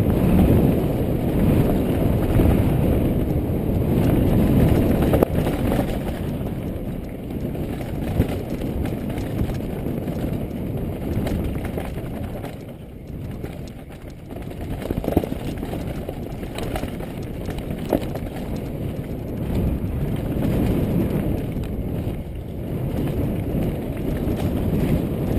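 Mountain bike descending fast over a rough gravel and dirt trail, heard from a GoPro riding along: a continuous rumble and rattle of tyres on loose stones and the bike shaking. A few sharp knocks stand out from hits on the trail.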